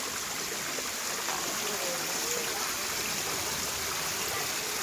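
Shallow valley stream running, a steady rushing babble of water.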